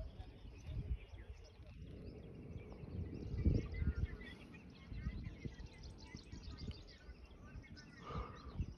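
Outdoor ambience: small birds chirping faintly, busiest in the middle, over a low, uneven rumble of wind on the microphone.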